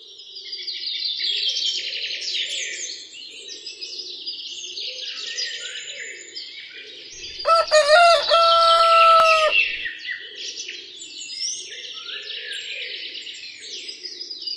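Farmyard ambience: many small birds chirping, fading in at the start. About halfway through, a rooster crows once for about two seconds, the loudest sound.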